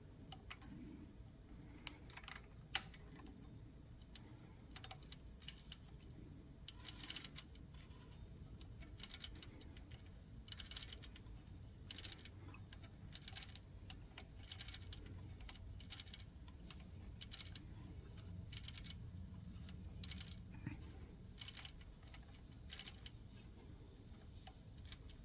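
Faint, irregular small clicks and taps of metal parts being handled on a Smith Premier No. 10 typewriter as its ribbon is fitted to the spool, with one sharper click about three seconds in.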